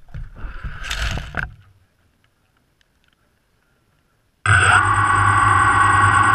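Scraping and rustling as an action camera is handled and set down in grass, then dead silence. About halfway through, a loud, steady sound with several held pitches cuts in abruptly.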